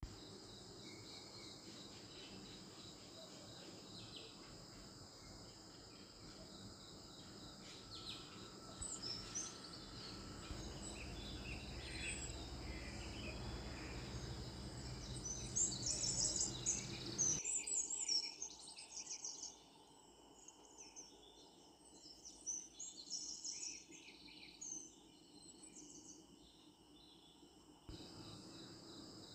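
Crickets chirping steadily, with short high bird chirps coming and going over them. A low rumble underneath stops suddenly about two thirds of the way through.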